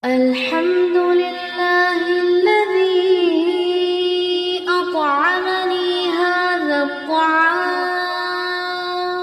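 Background vocal music: a sung melody of long held notes with slides between them, starting suddenly.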